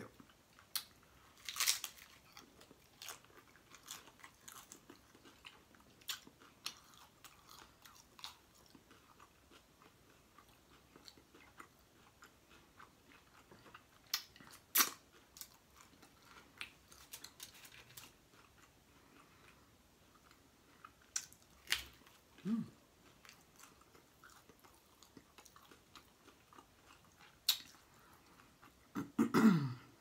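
Close-miked chewing and biting of a crispy fried taco shell, with irregular sharp crunches and wet mouth sounds. Two brief low vocal sounds come about two-thirds through and again near the end.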